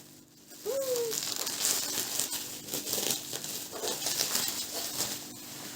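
Crinkling plastic wrapping of a pack of cookies being handled, a dense crackle of small ticks that starts about half a second in.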